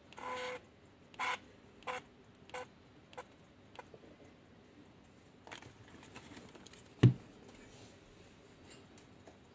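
Camera speedlight's zoom head motor running in short bursts: one of about half a second, then three brief ones evenly spaced over the next two seconds, as the zoom is stepped with its button. Small clicks of handling follow, and one loud, deep knock comes about seven seconds in as the flash is handled.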